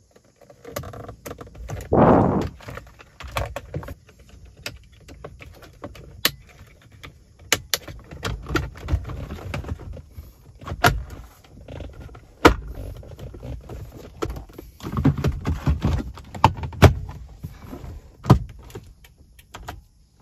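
Hard plastic dashboard trim and wiring connectors being handled and refitted: a run of sharp clicks, taps and knocks, with a louder rustle about two seconds in.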